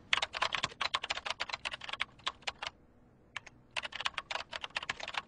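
Fast typing on a computer keyboard: a rapid run of key clicks for a little over two seconds, a short pause broken by a couple of single keystrokes, then another quick run of clicks.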